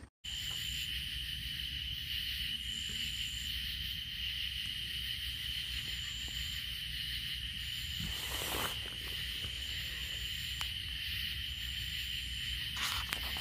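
Steady, high-pitched insect chorus, with a higher trill that comes and goes every second or two.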